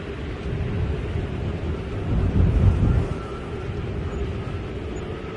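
Sandstorm wind blowing hard across a phone's microphone: a low, noisy rumble that gusts louder a couple of seconds in.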